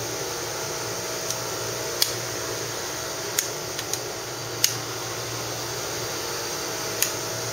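Steady fan-like hum of lab ventilation or equipment, with about half a dozen short, sharp clicks scattered through it.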